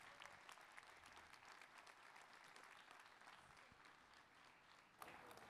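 Faint applause from an audience, very quiet.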